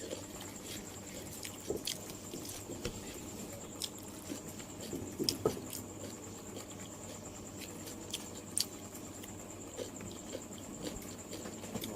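Close-miked chewing and eating: scattered soft crunches and clicks at irregular intervals, over a faint steady high-pitched hiss.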